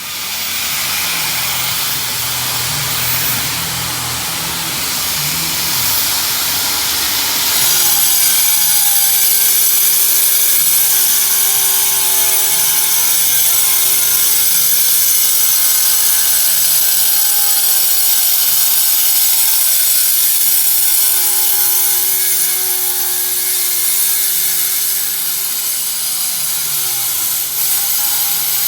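A power tool cutting, a coarse grinding noise for the first several seconds. Then a high-speed router motor whines steadily as it runs along an edge, its pitch dipping briefly a couple of times as it takes load.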